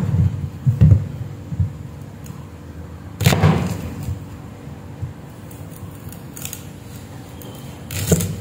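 Steel cleaver chopping peeled cassava on a wooden cutting board: three separate chops, about a second in, a little after three seconds, and near the end.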